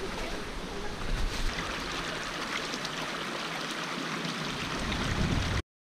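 Steady rushing of a shallow rocky mountain stream, with a low rumble of wind on the microphone. It cuts off suddenly near the end.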